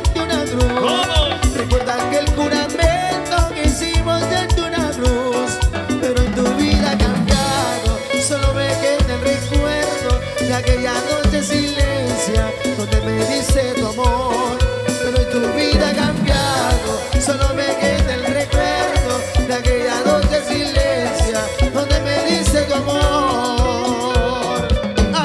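Mostly instrumental Latin band music, Peruvian cumbia style, with a steady, even beat and melodic instrument lines over it.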